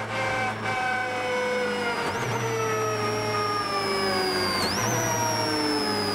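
Ford Focus RS WRC 07 rally car's turbocharged four-cylinder engine and a high transmission whine, heard from inside the car. The revs fall steadily as the car slows, with two brief jumps in pitch about two and four and a half seconds in.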